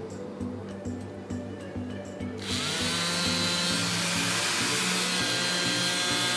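Small DC hobby motor driving a plastic propeller on a homemade toy car, switched on about two and a half seconds in: a whine that climbs as it spins up, then a steady loud whir.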